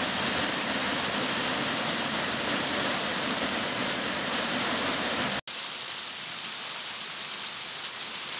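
Waterfall rushing steadily. About five seconds in the sound cuts abruptly to a slightly quieter, thinner rush of falling water.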